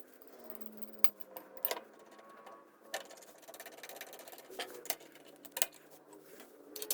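Scattered sharp metal clicks and knocks as a steel foot plate is handled and slid onto a Badland 3-ton off-road jack, a single tap every second or so.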